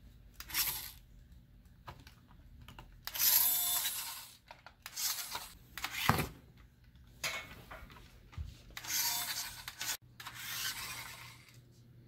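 Toy RC monster truck's small electric motor and gears whirring in about seven short bursts as it is driven in spurts over a fabric bedspread, with a thump about six seconds in.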